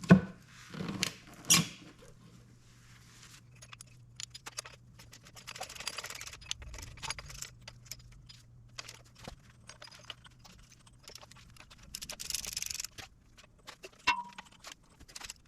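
Metal hand tools clicking and clinking against a 396 big-block Chevy engine while its cylinder head bolts are worked loose, with two stretches of rapid ratcheting and a sharp metallic clink near the end.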